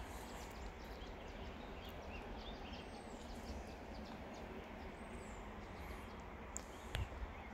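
Quiet outdoor ambience: a steady low rumble with a few faint, high bird chirps, and a single sharp click about seven seconds in.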